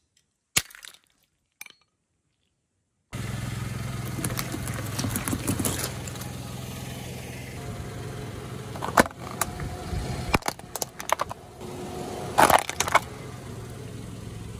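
A few sharp clicks. Then, about three seconds in, a car's engine is heard running steadily under a string of sharp cracks and crunches as a plastic toy SUV's body breaks under the load, the loudest cracks in the middle and near the end.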